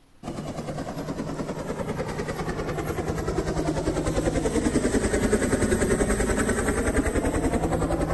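Helicopter sound effect: fast, steady rotor chop with engine noise, starting abruptly just after the start and growing slightly louder.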